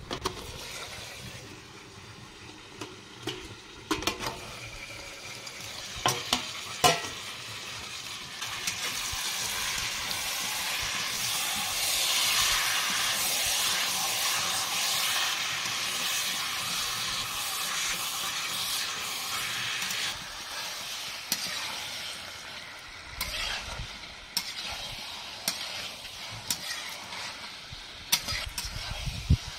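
Chicken pieces in masala sizzling in a metal kadai while a steel spatula stirs them and scrapes against the pan. A few sharp metal clinks come in the first seven seconds. The sizzle is loudest in the middle, and separate scrapes and knocks of the spatula on the pan come near the end.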